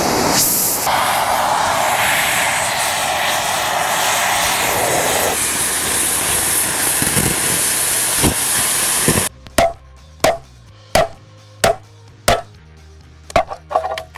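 A steady rushing noise stops abruptly about nine seconds in. It is followed by a series of sharp metal-on-metal hammer blows with a short ring, roughly one every two-thirds of a second, as the ball joint and bushings are knocked out of a steel lower A-arm.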